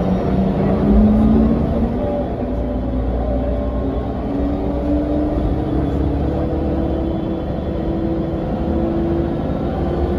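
Interior of a 2001 Mercedes-Benz O405NH city bus under way: a steady diesel rumble, with a whine from the ZF automatic gearbox and hub-reduction rear axle that rises slowly in pitch as the bus picks up speed.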